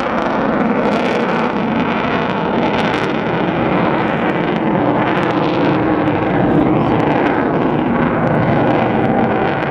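Eurofighter Typhoon's twin jet engines heard from the ground as the jet flies high overhead, a steady, unbroken jet noise.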